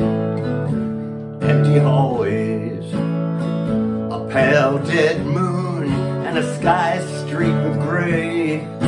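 A man singing a slow ballad, accompanying himself on a steel-string acoustic guitar, with held chords under several sung phrases.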